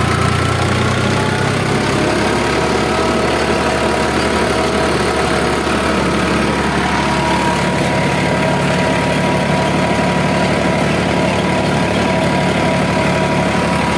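Farmtrac 60 Powermaxx F41 tractor's diesel engine running steadily under load, pulling an 18-disc harrow in second high gear, heard up close from the driver's seat. A steady, even whine sits above the engine note.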